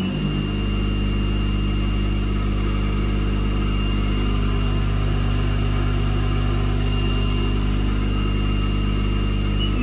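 Haas CL-1 CNC lathe spindle running at a steady speed: an even motor whine over a low hum.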